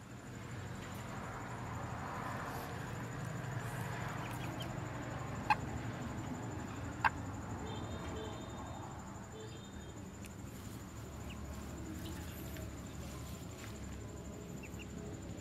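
Broody hen clucking low in a straw nest, with a few faint high peeps from newly hatched ducklings. Two sharp clicks, about a second and a half apart, come near the middle and are the loudest sounds.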